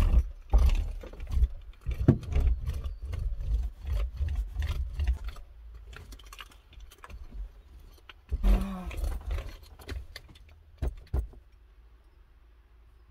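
Rustling and soft thumps as mattress pads are patted down onto hook-and-loop (velcro) strips and a blanket is spread over them. The handling is busiest in the first half, with a brief burst about eight and a half seconds in and a few sharp clicks near eleven seconds.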